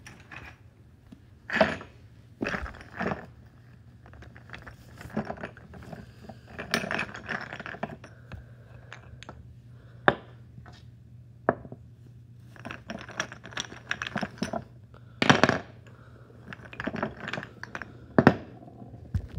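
Plastic chess pieces knocking and clattering irregularly as they are picked up and set down on a chessboard, with bursts of handling noise between the clicks.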